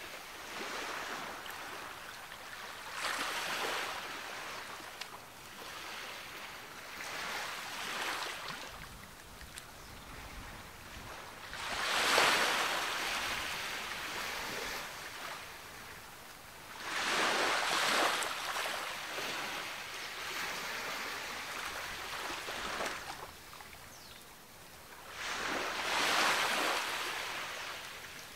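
Ocean waves breaking on the beach, each surge of surf swelling and falling away every few seconds; the biggest breakers come a little before the middle, just past it, and near the end.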